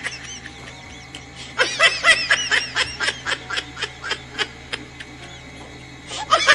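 Raccoon chittering: a rapid run of short, high chirps. One burst lasts about three seconds, a few single chirps follow, and another burst starts near the end.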